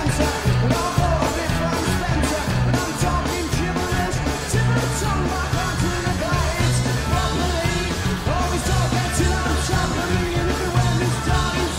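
Live indie rock band playing: a male lead voice singing over electric guitars, bass and drums, with a steady driving low-end pulse.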